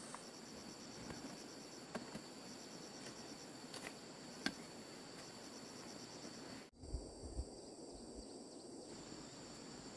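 Crickets and other insects chirring steadily at a high pitch. A few sharp knocks about a second apart from a hoe chopping into the soil, and a few low muffled thumps after a brief break about two-thirds through.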